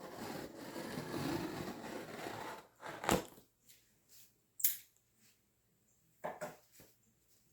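Laptop packaging being handled by hand: rustling and scraping for about two and a half seconds, then a single knock, a sharp click, and a few light taps near the end.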